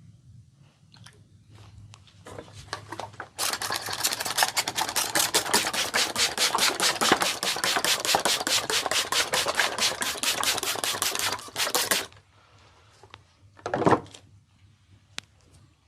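Hair cracking in a barber's head massage: a fast, continuous run of crackling snaps that starts a few seconds in, lasts about eight seconds and stops abruptly. A single louder knock follows a couple of seconds later.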